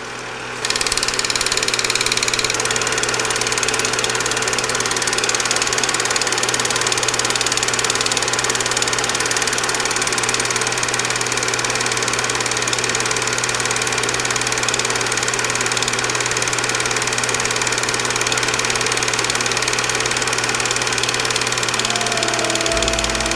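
Film projector running: a steady mechanical whir with a constant low hum and hiss, coming up to full level about a second in. Music comes in faintly near the end.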